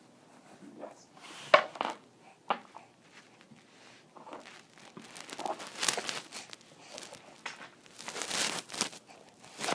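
Irregular crinkling and rustling with a few soft clicks, close to the microphone: handling noise as a baby grabs and moves things right by the phone.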